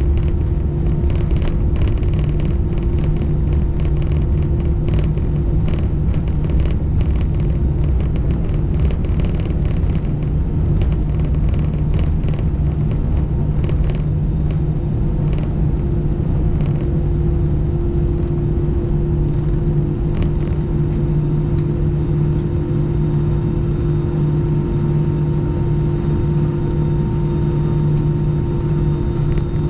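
Cabin noise of an Airbus A319 taxiing after landing: a steady low rumble with a constant hum from the idling jet engines. Light clicks and rattles come through over the first half.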